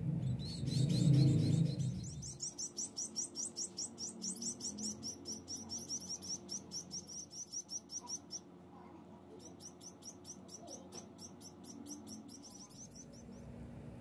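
Society finch nestlings begging while being hand-fed from a syringe: rapid, high-pitched chirps at about five a second. They break off briefly a little past the middle, then start again. A low rumble of handling, the loudest sound, comes first, in the opening two seconds.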